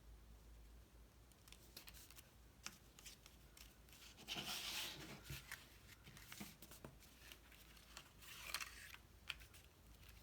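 Cardstock being handled, pressed and folded by hand: soft paper rustles and small taps, with a louder rustle about four seconds in and another about eight seconds in.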